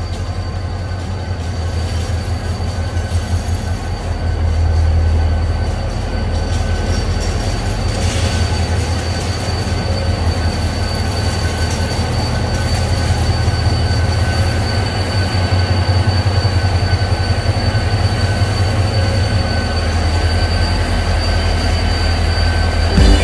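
Korail diesel locomotive hauling a passenger train as it pulls slowly into a station, its engine giving a steady low drone. A thin, steady high squeal joins in about six seconds in. The sound grows gradually louder as the train approaches.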